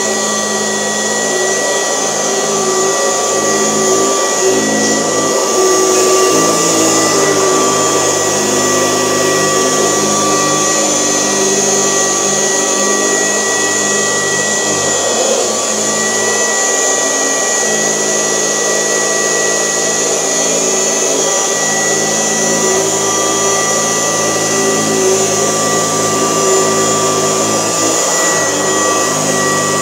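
1972 Kirby Classic 1CR vacuum cleaner running steadily in portable mode, vacuuming a mattress, its motor giving a constant high whine over the rush of air.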